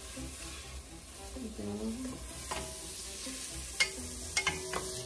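Rice, diced onion and bell pepper sizzling in hot vegetable oil in a stainless steel saucepan, stirred with a wooden spoon that knocks against the pan a few times in the second half. The rice is being coated in the oil to toast it golden.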